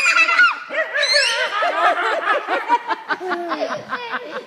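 Several people laughing together: overlapping snickers and high-pitched giggles in quick pulses.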